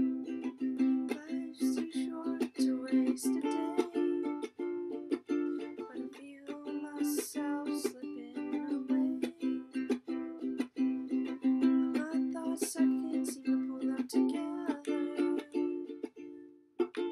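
Ukulele strumming chords in a steady rhythm, with a short break near the end.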